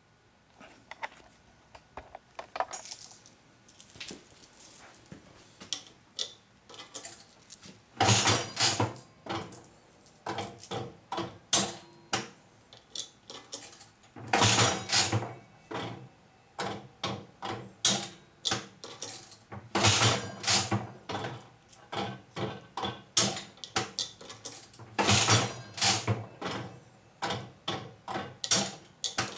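Aristocrat Elite mechanical reel slot machine being played: faint clicking at first. From about eight seconds in, the handle is pulled about every five to six seconds, each pull a loud metallic clatter, followed by smaller clicks and clunks as the reels spin and stop.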